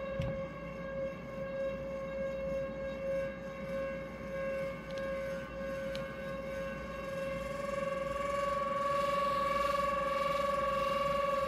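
Improvised electronic drone from a live electronic rig played through small speakers: one held, siren-like tone with overtones, wavering slightly and swelling louder about eight seconds in.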